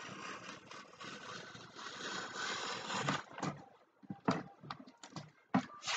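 Scissors cutting along the edge of a paper poster print: a continuous cut for about three seconds, then several short, separate snips and paper rustles.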